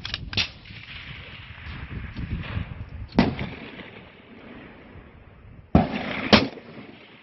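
6mm Creedmoor bolt-action precision rifle firing several sharp shots a few seconds apart, over a low rumble.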